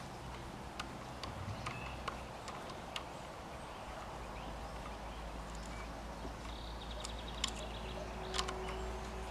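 Scattered faint metallic clicks of a screwdriver bit working the end-cap screws of a Leo Vince TT scooter silencer, the sharpest two near the end, over a steady low outdoor rumble.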